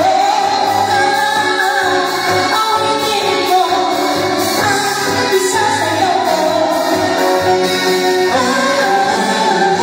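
Loud live stage music: a singer's voice carrying a melody over musical accompaniment.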